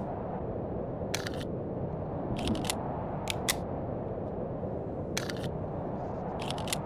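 Short, sharp metallic clicks and clacks of a Colt 1911 pistol being handled, about seven of them spaced irregularly, some in quick pairs, over a steady low rumble. They are mechanical handling sounds, not shots.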